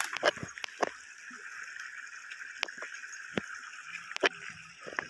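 Steady high hiss of creekside ambience, with scattered sharp knocks of footsteps on creek stones at uneven intervals, the loudest just after the start and about four seconds in.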